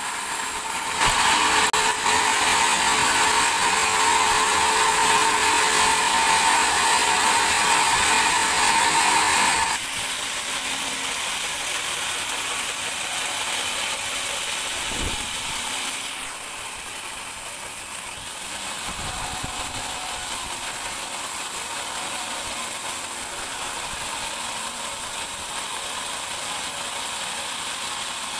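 Band sawmill sawing a large teak log, with a loud, steady whine for the first ten seconds or so. The noise then drops suddenly to a lower, steady running noise.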